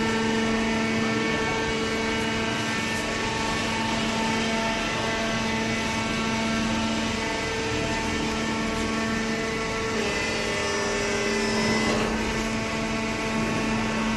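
Hydraulic cardboard baler running: a steady machine drone with a strong held pitch, its tone shifting slightly about ten seconds in.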